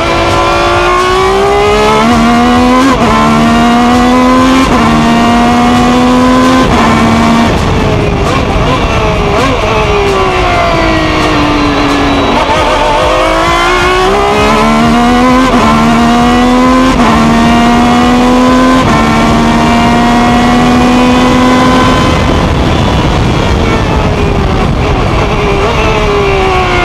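Ferrari 333 SP's V12 racing engine at full throttle, heard onboard. Its pitch climbs through quick upshifts about every two seconds, falls away as the car slows, then climbs through several more upshifts before falling again near the end.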